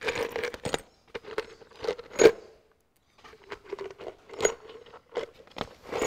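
Small steel bolts and spring washers being handled, clinking and rattling together in a run of irregular light metallic clicks, a few of them ringing briefly.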